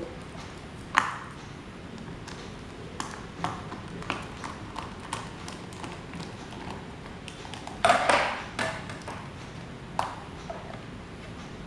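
Scattered metallic taps and clinks with a short ring, from metal parts being handled and set down: a sharp one about a second in, a cluster of knocks near eight seconds and another strike near ten, over a steady background hiss.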